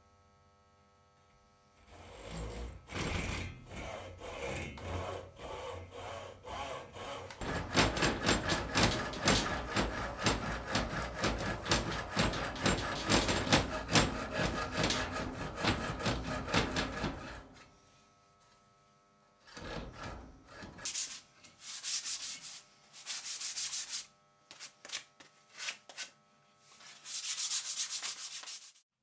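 Wood being worked by hand with an abrasive tool, in quick back-and-forth rubbing strokes. The strokes are loudest and most continuous in a long stretch through the middle, then come in short bursts with pauses.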